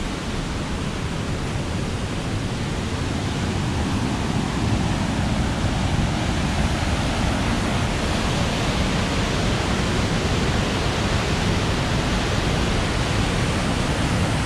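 Rushing river water, a steady rush of rapids that grows a little louder about four seconds in.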